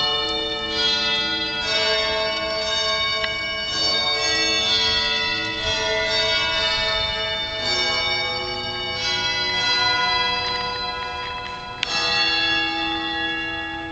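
Slow, solemn music of long held notes, with new notes coming in every second or two and a bell-like ring.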